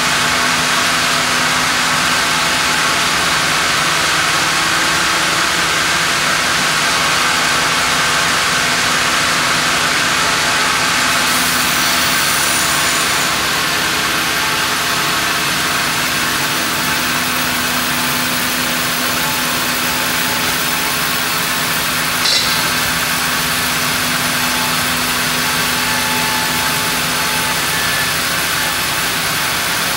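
Large sawmill band saw and its log carriage running with a steady mechanical hum and hiss as a monkeypod log is carried up to the blade. A single short click comes about two-thirds of the way through.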